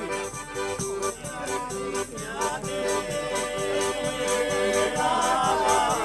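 Southern Italian folk music: a piano accordion playing a repeating tune over the steady beat of a large tambourine, with a voice singing a wavering line near the end.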